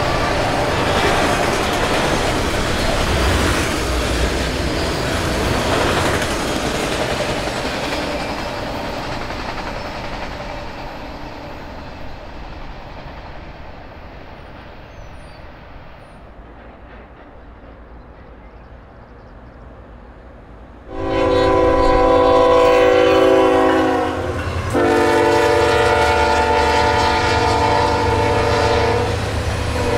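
A rumble from a train fades away, then a Norfolk Southern diesel freight locomotive sounds its air horn as it comes by: two long blasts, the second about four seconds long, over the low rumble of the engines.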